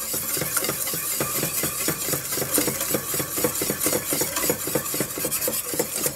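Wire whisk beating melted butter and sugar in a stainless steel saucepan, its wires clattering against the pan's sides and bottom in a fast, even rhythm.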